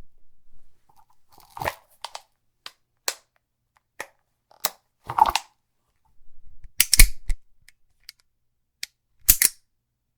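Gun reloading: a series of sharp mechanical clicks and clacks with short pauses between them, the loudest cluster about seven seconds in.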